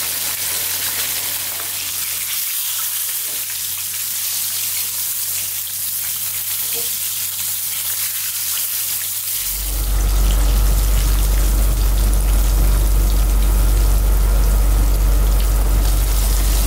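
Breaded chicken pieces deep-frying in hot oil in a frying pan: a dense, steady crackling sizzle. About nine and a half seconds in it gets louder, with a low rumble underneath.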